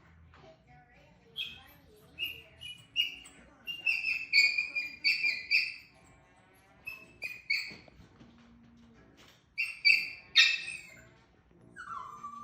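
A rapid run of short, high-pitched squeaks in several clusters, each squeak a brief steady note, with a falling squeal near the end.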